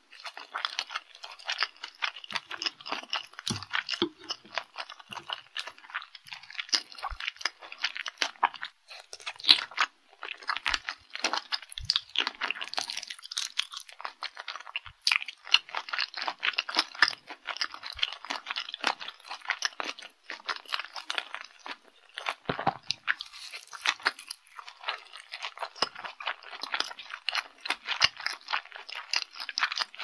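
Close-miked eating sounds of chewing seaweed-coated rice balls and marinated raw shrimp: a dense run of small mouth clicks, with brief pauses about a third and two thirds of the way through.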